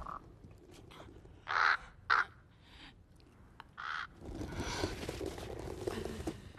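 Crow cawing three times: two harsh caws about half a second apart, then a third about two seconds later. A soft rustling noise follows over the last couple of seconds.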